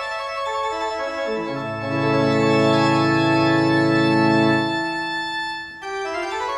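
Organ music: a line of held notes steps downward, then deep bass notes come in about a second and a half in under a loud sustained chord. The bass drops away near five seconds, and a new phrase begins shortly after.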